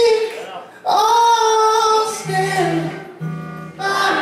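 A man singing long held notes over an electric guitar, live. From about two seconds in, low repeated notes carry the accompaniment under the voice.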